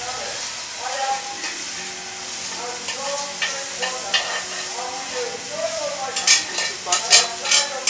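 Food sizzling in a frying pan on a gas burner while a spatula stirs and scrapes it. Near the end comes a quick run of sharp, louder scrapes and knocks of the spatula against the pan.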